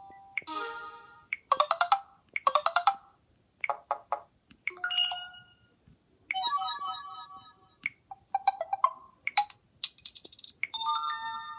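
Samsung Galaxy S Blaze 4G playing its built-in notification tones one after another: about ten short, different electronic chimes and jingles, each under about a second, with brief pauses between them.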